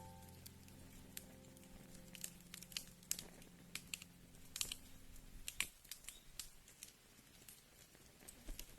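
Wood fire crackling: irregular sharp pops and snaps over a soft hiss. Soft held background music tones fade out about halfway through.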